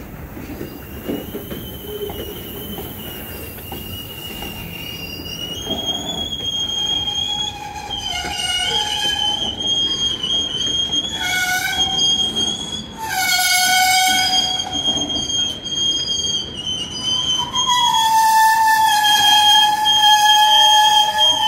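Freight cars rolling slowly past with their steel wheels squealing in high, wavering tones that come and go over the rumble of the train. The squeal is loudest in the last few seconds.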